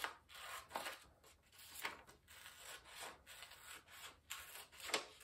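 Scissors cutting through paper: a run of faint, uneven snips and scrapes, the loudest near the end.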